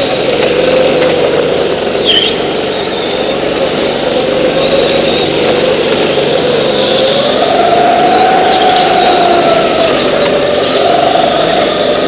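Go-kart engines running hard, the engine note rising and falling in pitch as the karts accelerate and lift off, with a couple of short high squeaks.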